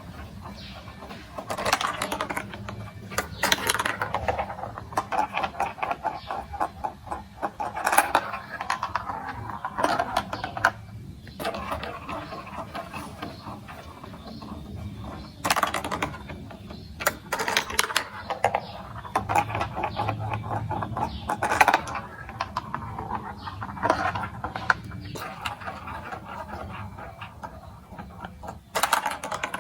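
Plastic marble-run building blocks and marbles clicking and rattling: dense runs of rapid small clicks, broken by a few sharper knocks.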